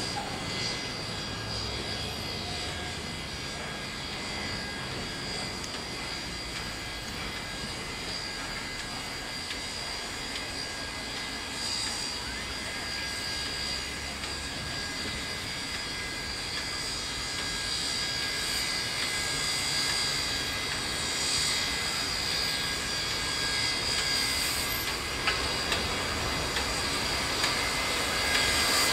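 NSWGR C36 class steam locomotive drifting in slowly tender-first with its train, giving a steady high hiss and whine that grows louder as it draws near. A few sharp clicks come near the end.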